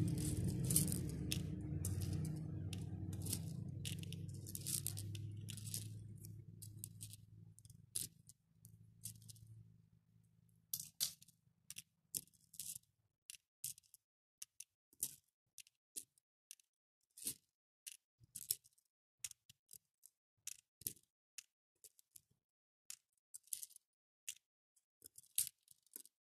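Small faux pearl beads clicking against one another and the plastic as they are picked out of a round plastic dish and dropped into a plastic organizer compartment, a few quick clicks at a time and then single clicks about once a second. Background music fades out over the first several seconds.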